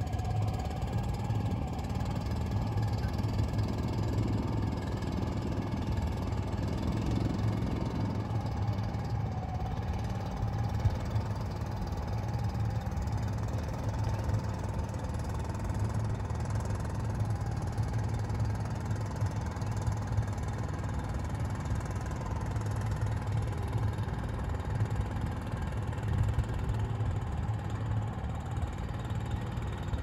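Small fishing boat's engine running steadily: a low drone with a faint, slightly wavering whine above it.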